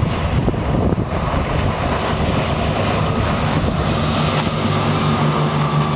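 Motorboat running at planing speed: a steady rush of water and spray, with wind buffeting the microphone. A low, steady engine drone becomes clearer from about four seconds in.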